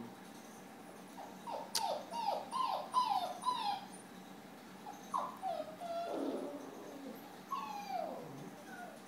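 Alaskan malamute puppies whining: a quick run of short, high whines, each falling in pitch, starting about a second and a half in, then a few more, further apart, later on. A single sharp click comes near the start of the run.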